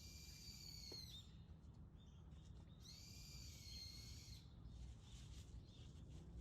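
A bird gives two long calls about three seconds apart, each held at one high pitch and dropping slightly at the end. A faint low background rumble runs underneath.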